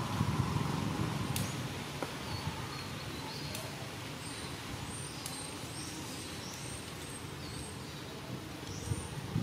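Outdoor ambience: a steady low background rumble, with a series of short, high-pitched bird chirps from about three and a half seconds in.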